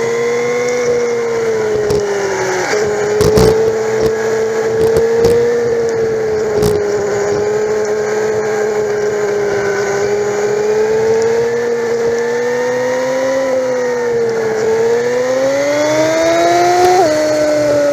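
Honda Magna's V4 engine running at freeway speed, a steady drone whose pitch wavers with the throttle. Near the end it climbs as the bike accelerates, then drops suddenly at an upshift; a few sharp knocks come between about three and seven seconds in.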